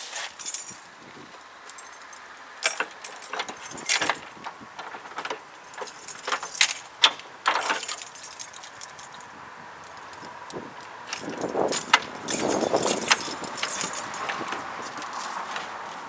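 A bunch of keys jangling and clicking against the lock of a wooden garage door as it is unlocked, with a louder stretch of rattling and scraping in the last few seconds as the door is worked open.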